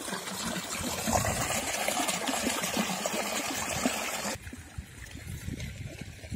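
Irrigation water from a field channel pouring and splashing into a flooded rice paddy: a steady rush that drops off abruptly about four seconds in.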